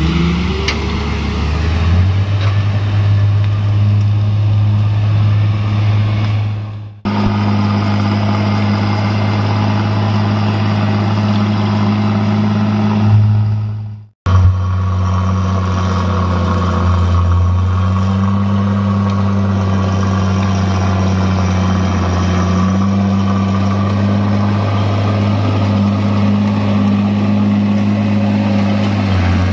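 A truck engine running steadily, a low hum that holds its pitch apart from small steps up and down. The sound breaks off abruptly twice, about 7 and 14 seconds in, and picks up again at once.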